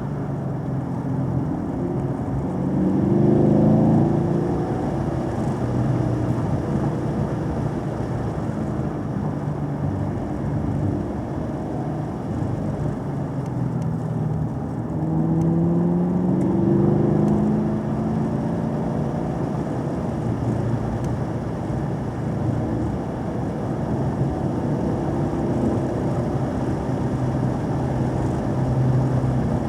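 Car engine accelerating along a winding road, its pitch climbing as it pulls hard about three seconds in and again midway, over steady tyre and road noise.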